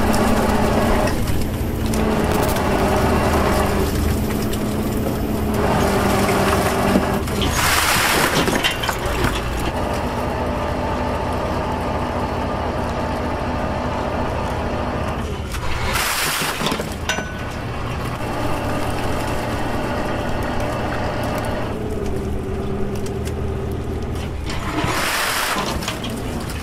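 Engine of an oyster work boat running steadily while its crane repeatedly drops strings of cultured oysters to knock the shells off; three loud crashing clatters of oyster shells falling, about eight seconds apart.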